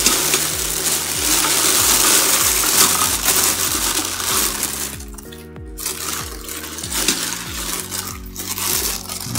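Plastic packaging bags crinkling and rustling as they are handled and pulled out of a pot, loudest in the first half with a brief lull about five seconds in. Background music with a steady beat plays underneath.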